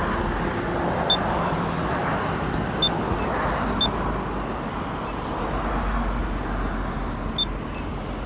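Steady road traffic noise from cars driving past on a busy multi-lane road, with a few short high beeps about a second or two apart.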